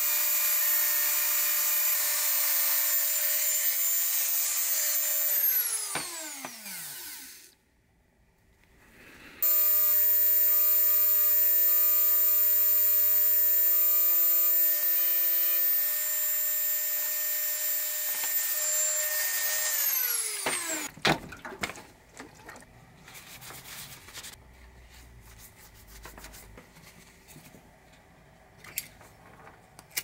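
Dremel rotary tool with a diamond bit running at a steady high whine while engraving a Zippo lighter's metal case. It is switched off about six seconds in and the whine falls away, starts again abruptly a few seconds later, runs until about twenty seconds in and winds down again. After that come only a few faint clicks.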